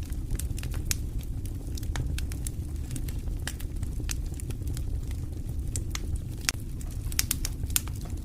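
Wood campfire crackling, with irregular sharp pops scattered throughout over a steady low rumble.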